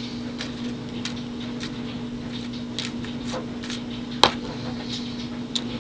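Small metallic clicks and taps as pin tumblers are taken out of a Master Lock Pro Series 6840 brass padlock's cylinder, with one sharp click about four seconds in. A steady low hum runs underneath.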